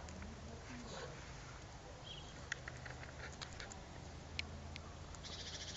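Faint outdoor background: a low steady hum with scattered light ticks and clicks and a few faint chirps.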